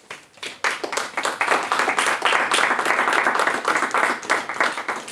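Audience applauding: a few scattered claps that fill out within half a second into dense, steady clapping, thinning near the end.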